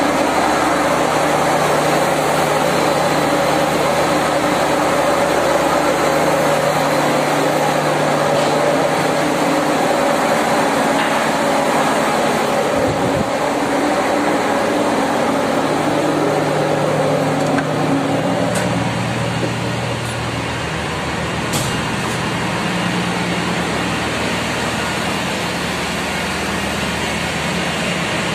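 Ship's engine-room machinery running: a loud, steady drone with several steady hums underneath, easing off slightly a little past the middle.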